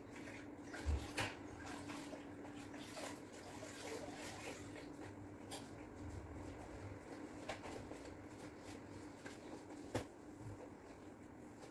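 Quiet room with a steady low hum and scattered soft clicks and knocks from someone moving about. Two sharper knocks come about a second in and one more near the end.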